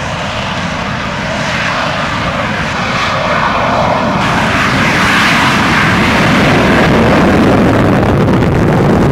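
F-16 fighter jet's engine running at high power as the jet accelerates down the runway on its takeoff run, the noise growing steadily louder.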